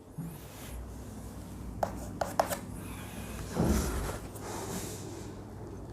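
Faint rubbing and scraping, like handling on a desk or writing surface, with a few light clicks about two seconds in and a brief louder brush just past halfway, over a low steady hum.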